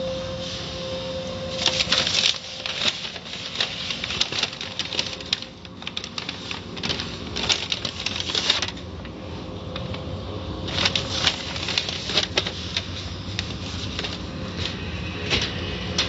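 Cloth brush strips of an automatic car wash slapping and scrubbing against the car's body and glass, heard from inside the car, in rapid clattering bursts over a steady low hum. The slapping is heaviest from about two seconds in to about nine, eases off, and comes back strongly for a second or two later on.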